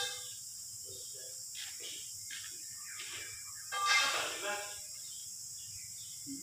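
A person's voice, briefly and loudest about four seconds in, with a few faint sounds before it, over a steady high hiss.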